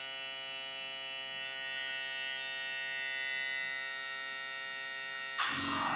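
Vitrectomy cutter running with its tip in a glass of water: a steady buzz with many overtones. About five and a half seconds in, a louder, noisier sound cuts in.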